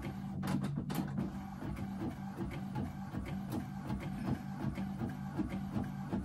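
Epson ET-8550 inkjet printer printing a photo at its standard quality setting: the print-head carriage moves back and forth in a steady repeating rhythm over a low motor hum, while the sheet feeds out into the output tray.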